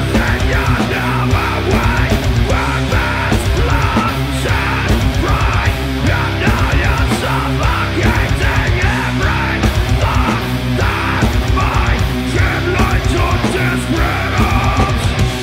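Doom metal band playing live: heavy distorted electric guitars and bass over drums with steady cymbal hits, and a harsh screamed vocal over the top. Loud and continuous.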